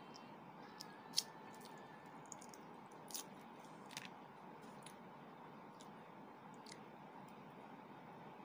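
Brittle clicks and crackles of a boiled balut duck-egg shell being peeled by hand: a sharp crack about a second in, then a few smaller ones around three and four seconds, over a steady faint hiss.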